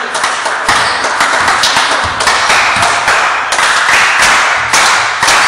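Quick, uneven taps and thuds, about two or three a second, echoing around a wooden-floored sports hall over a haze of hall noise.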